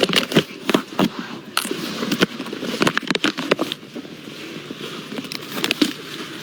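Handling noise: a quick flurry of clicks, knocks and rustles during the first four seconds, then a few more near the end, over the steady background noise of a train carriage.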